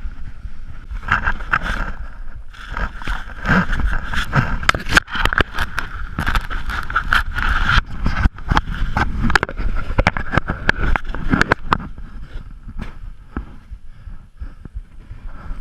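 Snowboard sliding and scraping over packed, grooved snow, with rattling knocks and wind buffeting the camera microphone. It quietens near the end as the rider comes to a stop and sits in the snow.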